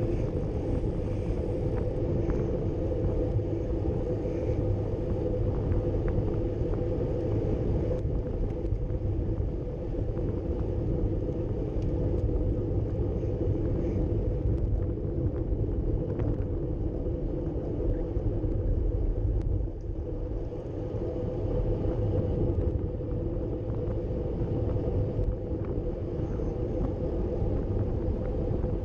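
Steady rumble of wind rushing over the camera microphone and road-bike tyres rolling on asphalt, at a group-ride pace of about 40 km/h.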